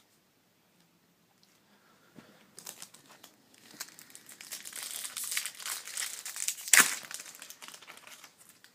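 Wrapper of a 2014 Bowman Chrome baseball card pack being torn open and crinkled. The crinkling starts about two and a half seconds in, with its loudest sharp crackle near the end.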